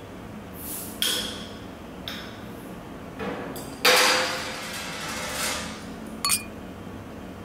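Glass beer bottles being handled: several knocks and clinks as a bottle is lifted and moved, the loudest about four seconds in with a short ringing tone and hiss after it. Just after six seconds, two bottles clink together once in a toast.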